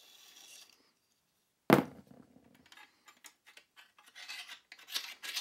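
Longsword hilt being taken apart: a faint sliding rub at first, a sharp knock a little under two seconds in, then the steel crossguard scraping and clicking against the tang as it is worked off.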